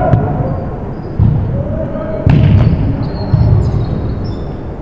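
A volleyball bouncing on a gym floor about once a second, each thump echoing through the hall. Near the end, sneakers squeak on the court.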